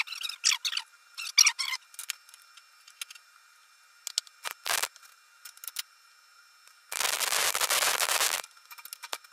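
Short metal clinks and scrapes as a steel tube is handled and set against a steel plate, then about seven seconds in an electric welding arc crackles steadily for about a second and a half while tacking the joint.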